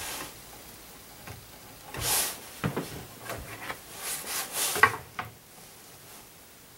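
Wooden pieces being handled on a worktable: short scraping rubs about two seconds in and again around four seconds in, and a single sharp wooden knock about two-thirds of the way through, the loudest sound.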